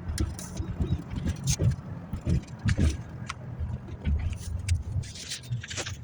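Inside a moving car: a steady low drone of engine and road noise, with scattered short knocks and clicks throughout.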